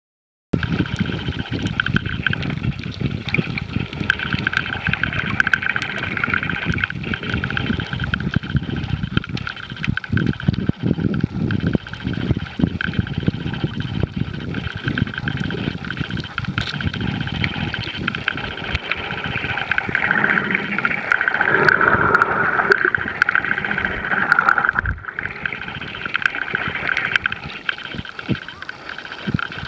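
Underwater sound picked up by a submerged camera: a muffled, crackling rush of water with many small clicks. Over it runs a steady high whine that grows louder for a few seconds about two-thirds of the way through.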